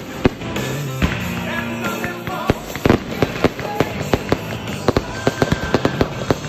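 Fireworks going off over music: a few sharp bangs at first, then from about halfway a rapid run of cracks and bangs, several a second.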